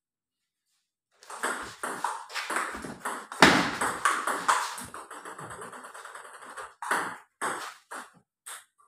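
Table tennis rally: the celluloid ball clicking off paddles and table in quick succession, starting about a second in. Near the end come separate ball bounces that get closer and closer together, as a ball bouncing to rest does.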